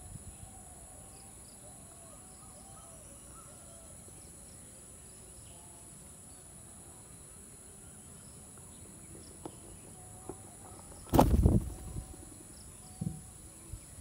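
Steady high-pitched insect chorus with faint, scattered bird calls. About eleven seconds in comes one loud brief thump or rustle, followed by a few lighter knocks near the end.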